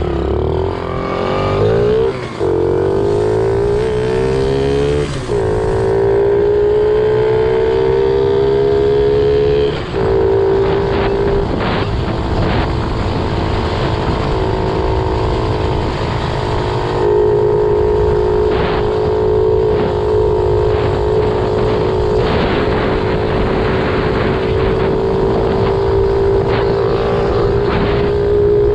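Small dirt-bike engine, its exhaust packed with steel wool as a makeshift muffler, accelerating while riding. The pitch climbs and drops back at gear changes about two, five and ten seconds in, then holds a steady high note while cruising.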